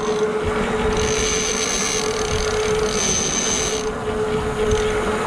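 Boat engine running at a steady drone while trolling, with wind and water noise. A high hiss with a thin whine comes in about a second in, drops out near four seconds and returns at the end.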